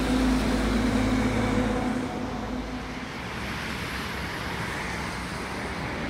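Diesel freight locomotive approaching, its engine a steady low drone that fades about two and a half seconds in, over a steady haze of wind noise.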